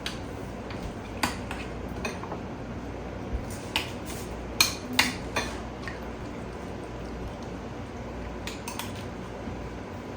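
A utensil clinking and knocking against a bowl in scattered, irregular strikes while a cheese topping is mixed, the sharpest clinks coming in a quick run about halfway through. A steady low hum runs underneath.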